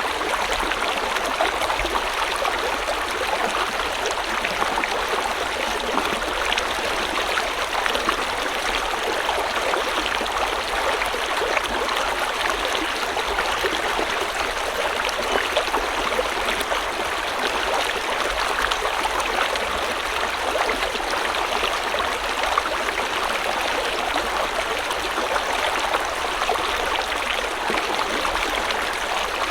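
River water flowing steadily over stones, a continuous rushing and babbling with fine splashing detail.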